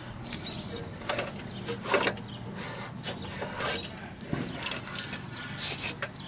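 The blade and crankshaft of an old Snapper rotary mower being turned slowly by hand, with a series of irregular mechanical clicks and ratcheting from the engine as it turns. This is a check on a crankshaft that is suspected to be bent.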